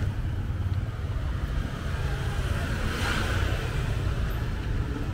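Steady rumble of street traffic, with a vehicle passing about three seconds in.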